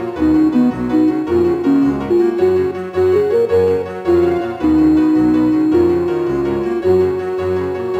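Background music: a keyboard melody over a pulsing bass line, settling onto a long held note about five seconds in.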